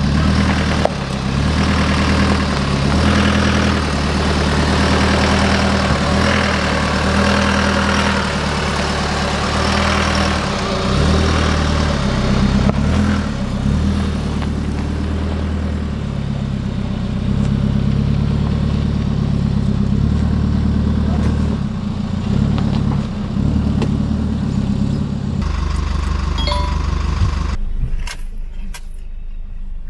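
Holden Colorado ute's diesel engine running under load and changing revs as it drives along a rough bush track. Near the end the sound drops to a quieter in-cab sound with scattered knocks and rattles.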